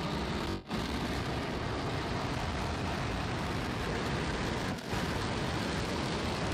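Starship SN8's Raptor rocket engines firing in a steady, rushing roar during the landing flip and landing burn. The roar drops out briefly twice.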